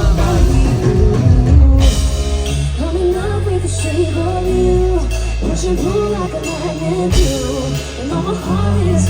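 Rock-style song with a singing voice, guitar, bass and drums.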